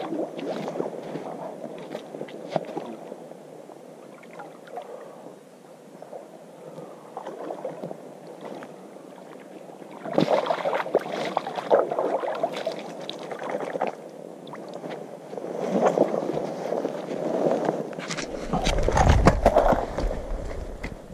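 Water sloshing and splashing at the river's edge while a king salmon is held in the shallows for release, louder in spells about ten seconds in and again near the end. Near the end comes a heavy rumble of handling on the camera microphone.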